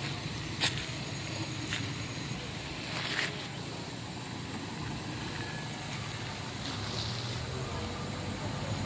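Engines of vehicles and road-building machinery running as a steady low rumble, with a few short sharp clicks in the first few seconds.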